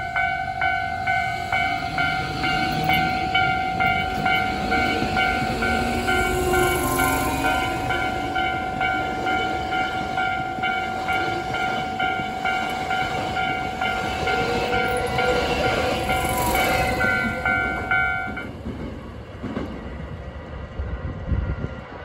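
Japanese level-crossing warning bell ringing in a steady ding-ding about twice a second while a Hankyu 7000-series electric train runs past close by. The bell stops a few seconds before the end, leaving the fading train rumble.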